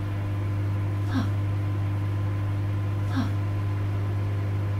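Steady low electrical hum of a running microwave oven. A short, faint sound with a falling pitch recurs about every two seconds.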